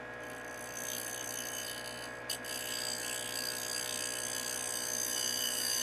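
Thread-cutting jig on a wood lathe running, its spinning cutter threading a turned wooden box: a steady machine hum made of several fixed tones that grows a little louder toward the end, with a short click about two seconds in. It is heard played back through a video call.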